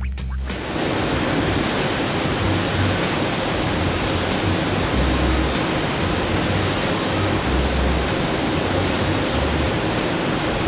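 Ski-base stone grinding machine on the finishing line running: a loud, steady rushing grind that starts about half a second in and holds even.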